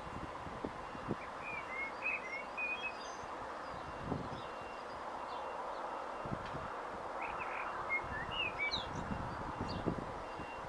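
Small birds chirping in two short flurries, a couple of seconds in and again around eight seconds in, over a steady mechanical hum carrying a faint high tone that comes and goes, with a few low thuds.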